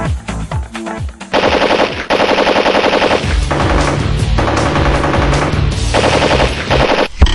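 Several long bursts of rapid machine-gun fire with short breaks between them, then one loud bang just before the end.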